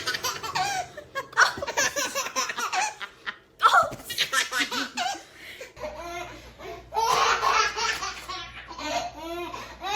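A baby laughing hard in repeated bursts of giggles and belly laughs.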